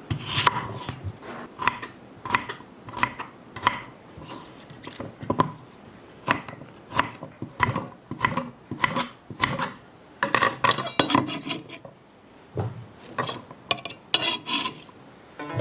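Repeated scraping or rasping strokes, about one and a half a second, each with a short ringing tone. They quicken briefly about ten seconds in and pause for a moment near twelve seconds.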